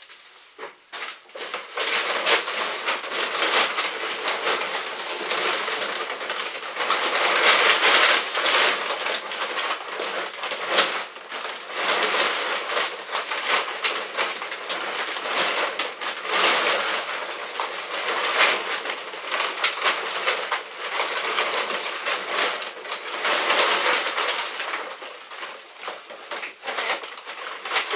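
Rustling and crinkling of feed sacks as someone digs into them and scoops out horse feed, in a run of irregular strokes.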